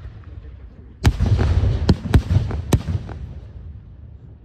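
Fireworks going off: a sharp bang about a second in, then several more sharp cracks over the next two seconds over a low rumble that fades away.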